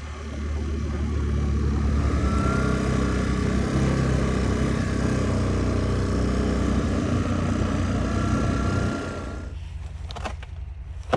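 A vehicle engine running steadily, then dropping off about nine seconds in, followed by a few sharp clicks and knocks near the end.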